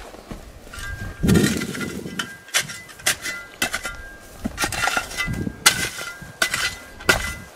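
Metal shovel blade striking and scraping dry, stony soil in repeated, irregular strokes, several with a faint metallic ring, and one heavier thud about a second and a half in.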